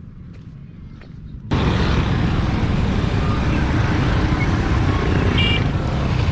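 Moving road vehicle and traffic noise with heavy low wind rumble on the microphone, starting abruptly about a second and a half in; a short high beep sounds near the end.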